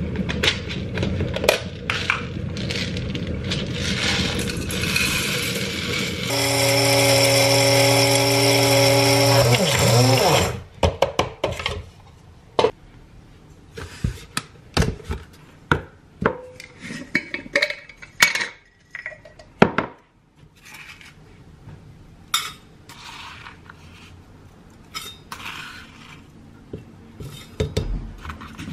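An electric coffee grinder runs loud and steady for about four seconds, a little after the start, then winds down in pitch as it stops. Before it comes clattering handling, and after it scattered clinks and taps of a metal grounds cup and utensils on the counter.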